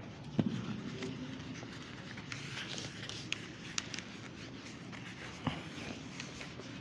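Whiteboard eraser rubbed back and forth across a whiteboard, wiping off marker writing in a series of short scratchy strokes, with two soft knocks, one about half a second in and one near the end.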